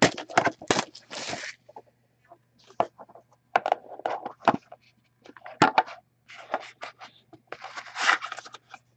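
Plastic wrap tearing and crinkling off a sealed trading-card box, then the cardboard box being opened and handled: scrapes, taps and rustles in short bursts, with another longer rustle near the end.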